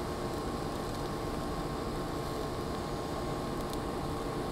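TIG welding arc running at about 165 amps on a steel plate, a steady hiss, as 1/8-inch filler rod is dipped into a fill pass.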